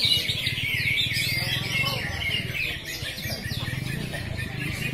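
Many caged cucak ijo (green leafbirds) singing at once: a dense, unbroken chorus of fast overlapping chirps, trills and whistles.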